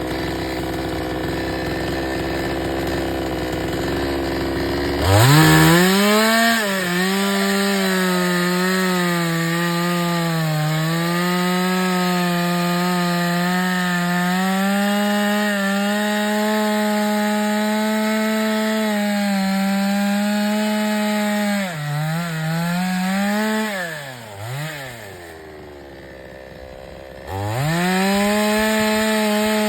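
Chainsaw idling, then throttled up about five seconds in and cutting through a fallen plum tree's main branch, its engine pitch sagging and wavering as the chain bites into the wood. Around three-quarters of the way through it drops back to idle for a few seconds, then revs up high again near the end.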